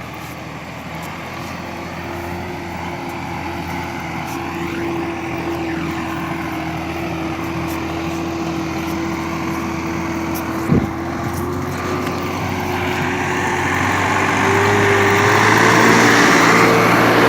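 New Holland TT4.50 tractor's diesel engine running under load while skidding logs, with a steady engine note that climbs in pitch and grows louder in the last few seconds as the revs rise. A single sharp knock comes about eleven seconds in.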